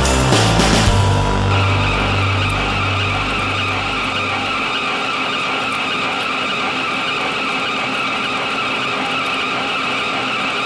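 1N65 screw-cutting lathe turning a steel shaft: the cutting tool makes a steady whine against the spinning workpiece. Background music fades out during the first few seconds.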